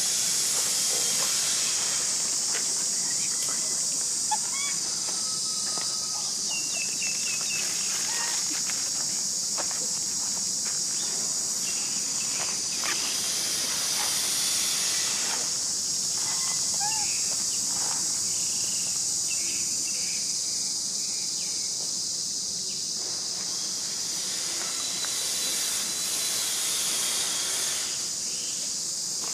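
Steady high-pitched drone of a chorus of insects, with a few faint short chirps now and then.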